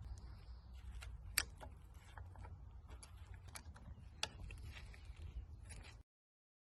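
Scattered sharp metallic clicks and taps of a hand tool working on the winder's gearbox as its grub screw is tightened onto the shaft, over a low steady rumble. The sound cuts off abruptly near the end.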